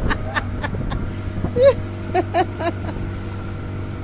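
A boat's engine running steadily with an even hum, and a few brief voice sounds in the middle.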